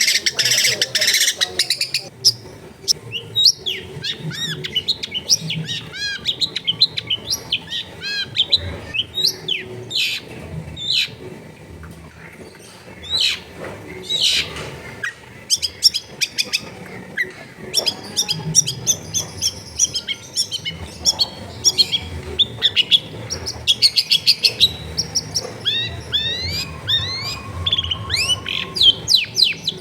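Long-tailed shrike singing a loud, varied song of quick chirps, sweeping notes and harsh squawks, with fast stuttering runs near the end.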